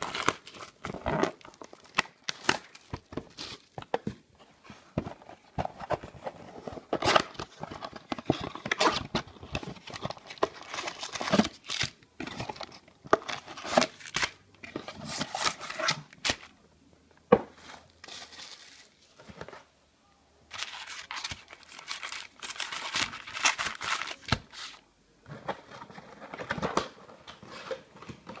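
A trading-card blaster box being unwrapped and torn open by hand, with its foil card packs taken out and handled: crinkling and tearing with many sharp crackles. There is a brief lull about two-thirds of the way through.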